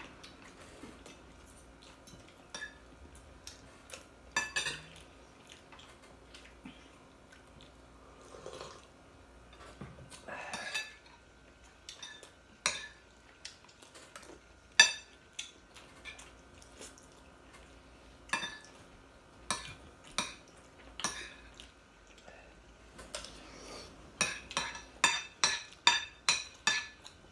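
Metal fork and spoon clinking and scraping on ceramic plates while eating, in scattered taps, with a quick run of clinks near the end.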